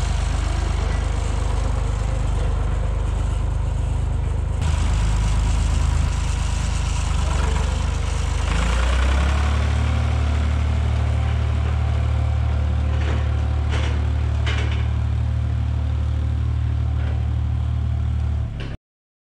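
Large engine running steadily; its speed steps up about four and a half seconds in and again about eight and a half seconds in. The sound cuts off abruptly near the end.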